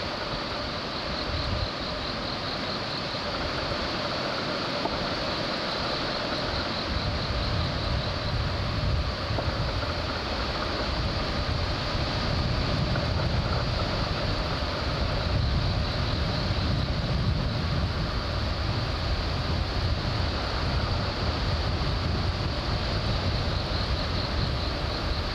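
Rough sea surf washing in steadily, stirred up by an approaching typhoon, with gusty wind rumbling on the microphone.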